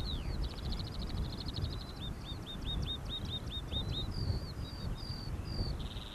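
A small songbird singing a varied phrase: a fast trill, then a string of quick hooked notes at about four a second, then a few clear whistled notes. Wind rumbles on the microphone underneath.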